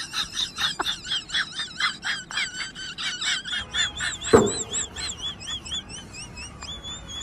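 A rapid series of short, high, bird-like chirps, about five a second, that slow and fade toward the end. A single knock comes about four seconds in.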